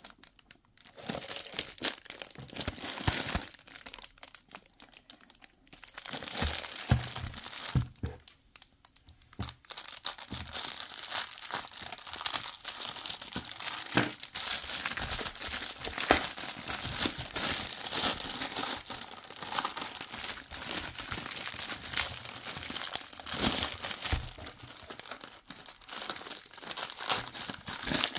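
Crinkling and rustling of plastic being handled, with many small clicks and crackles, coming in bursts broken by short pauses about a second in, around five seconds in and around nine seconds in.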